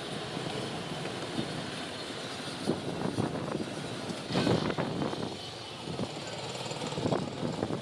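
Strong dust-storm wind blowing steadily, buffeting the microphone, with sudden gusts and bursts of rattling and knocking about three seconds in, loudest around the middle, and again near the end.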